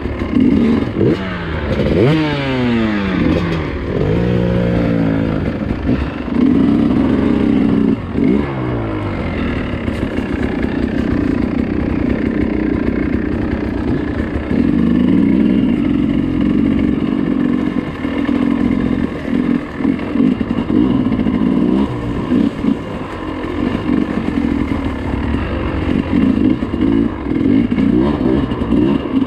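Dirt bike engine revving up and down in several quick rises and falls over the first few seconds, then running more steadily under throttle while riding a trail, with some clatter.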